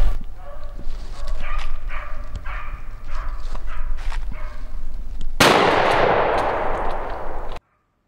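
Beagles baying in short, repeated cries as they run a rabbit. About five seconds in comes a single shotgun blast, whose echo rolls on for about two seconds before the sound cuts off suddenly.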